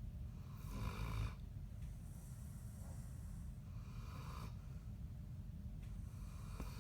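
A sleeping dog snoring, a rasping snore roughly every three seconds. The snore about a second in is the loudest.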